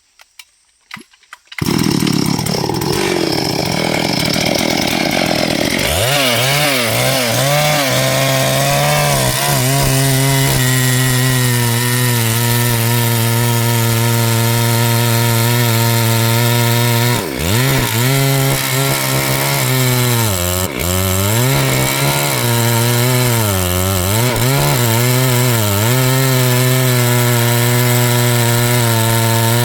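Small gasoline chainsaw cutting wood at full throttle, starting abruptly after a few faint clicks. Its engine note holds steady but dips in pitch several times as the chain loads up in the cut.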